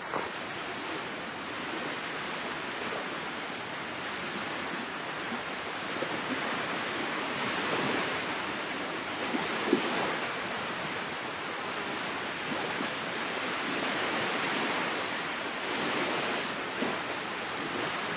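Sea surf washing onto a beach: a steady rush of noise that swells and eases slowly, with no clear break between waves.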